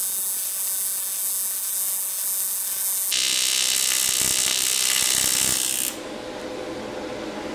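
AC TIG welding arc from a PrimeWeld TIG225x on aluminum, buzzing steadily as the bead is laid. It gets louder and harsher about three seconds in, then cuts off about six seconds in as the arc is broken, leaving a quieter hiss.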